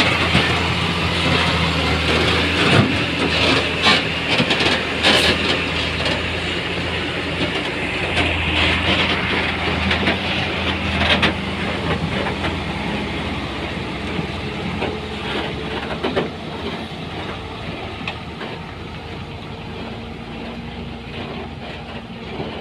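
Heavy diesel construction machinery running steadily, with scattered metallic clanks and knocks through the first half; the sound slowly grows quieter toward the end.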